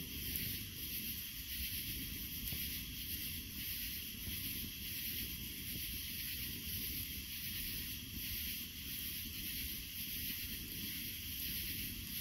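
Campfire burning: a steady, even hiss with an occasional faint crackle.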